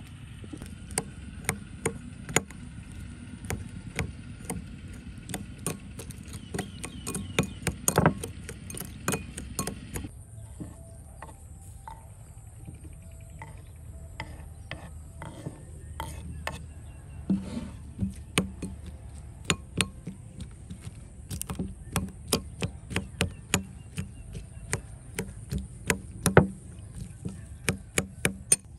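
A knife chopping food on a wooden board: irregular sharp knocks, one to three a second, with a change of background about ten seconds in. A steady high hiss runs underneath.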